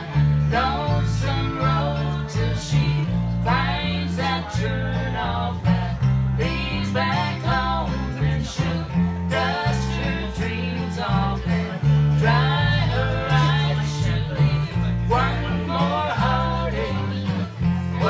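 Live country-style band music: strummed acoustic guitar over a steady bass line, with a melody line above.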